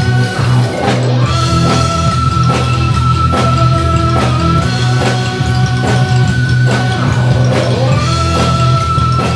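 Live instrumental rock: electric guitar and synthesizer over a steady bass, with long held high notes and a steady beat of a few hits a second.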